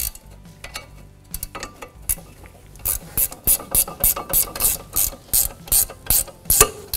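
Hand ratchet with a 17 mm socket clicking as it runs down a brake caliper bracket mounting bolt. A few scattered clicks come first, then a steady run of about three clicks a second through the second half.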